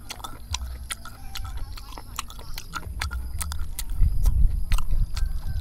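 Cooked snail shells clicking against one another and the metal pan as fingers pick through them, with some chewing. A low rumble swells about four seconds in.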